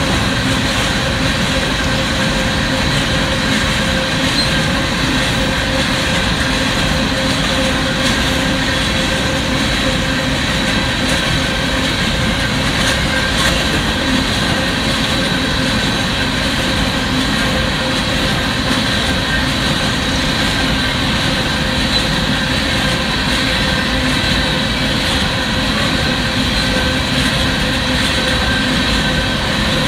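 An empty Union Pacific coal train's cars rolling steadily past over the rails, a loud continuous rumble and rattle of wheels on track. Steady high-pitched tones run through it.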